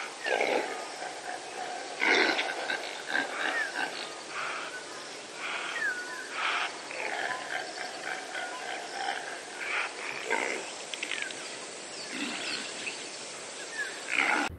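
Impala ram calling: a series of rough, grunting calls at irregular spacing, about one every second or two. Birds chirp faintly between the calls.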